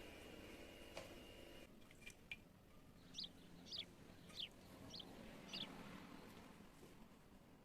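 Near silence with a bird chirping faintly: five short, high chirps about half a second apart, after a couple of small clicks.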